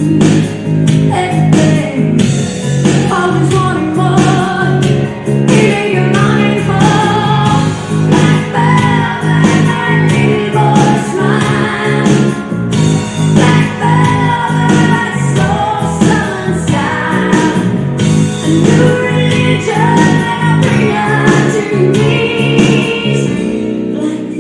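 Recorded pop music with a singing voice over a steady beat, played loud for a dance routine.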